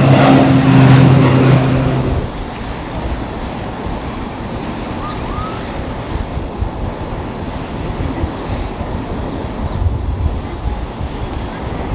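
A steady engine hum that cuts off suddenly about two seconds in, leaving a lower, uneven rumbling noise.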